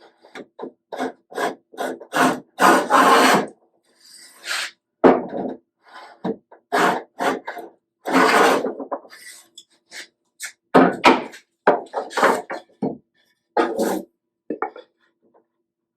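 Hand plane taking a series of short strokes and a few longer shaving passes along a board's edge, squaring the edge to the face.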